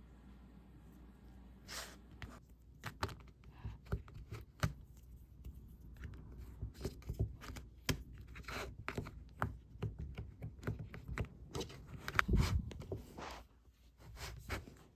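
Hands working polymer clay with small tools on a craft table: irregular taps, clicks and short scrapes, with a louder thump about twelve seconds in.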